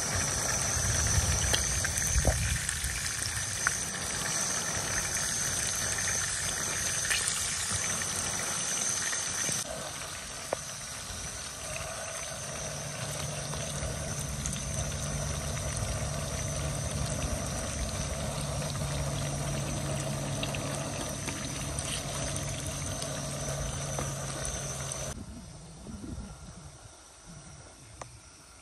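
Chicken wings and drumsticks sizzling as they fry in hot oil in a pan, turned with a wooden spatula. The sizzle drops away near the end, leaving quieter outdoor background sound.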